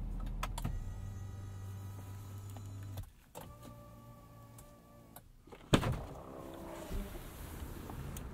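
Ford 6.7-litre Power Stroke turbo-diesel idling, then shut off with a click about three seconds in. A small electric motor then whines for about two seconds, and a sharp clunk near six seconds in sounds like the door latch opening.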